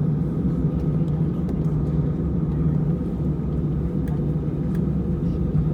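Steady low rumble of an Airbus A320's jet engines and airframe, heard from inside the passenger cabin.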